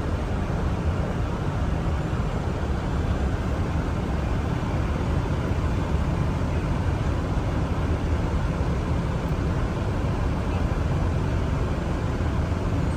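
Steady cockpit noise inside a Boeing 747: a continuous low rumble with a hiss above it, even throughout with no distinct events.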